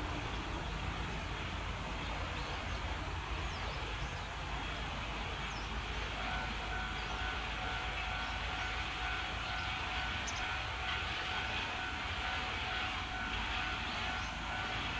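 Steady rumble of a distant engine, with a thin steady whine that joins about six seconds in and a few faint high chirps.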